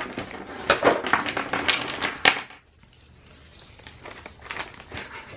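Jewelry pieces clinking and rattling as they are handled and set down: a run of sharp clinks for about the first two and a half seconds, then only a few soft handling clicks.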